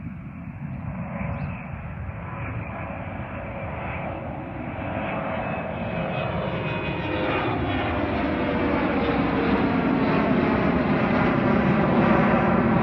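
Boeing 717's twin Rolls-Royce BR715 turbofans at climb power just after takeoff, the jet roar growing steadily louder as the airliner climbs toward and over the listener, with an engine whine that slides down in pitch.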